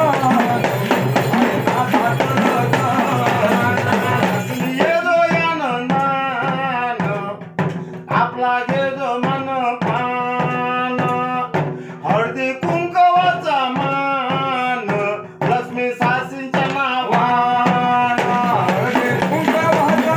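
Marathi folk music: a held, pitched melody over quick hand-drum strokes, with no sung words.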